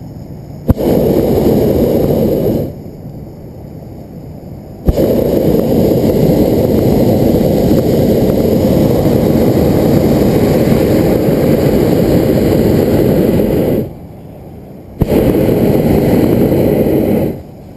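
Hot air balloon's propane burner firing in three blasts, heating the air in the envelope: a short burn of about two seconds, a long one of about nine seconds, and another of about two seconds near the end. Each burn starts with a sharp click as the valve opens and cuts off suddenly.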